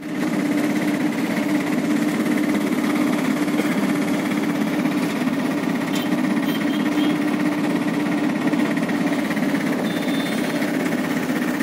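Engine and road noise of a vehicle driving at a steady speed, heard from on board as a constant low drone.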